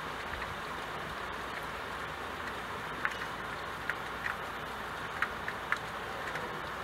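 Steady hiss of rain falling, with a few sharp ticks of single drops from about three seconds in.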